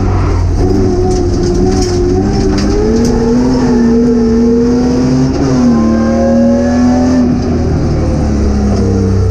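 Race car engine heard from inside its bare, roll-caged cabin, running hard under load. The pitch wavers and rises as the driver works the throttle, dips sharply about five seconds in and climbs again, and dips once more near the end. A few short clatters in the first few seconds.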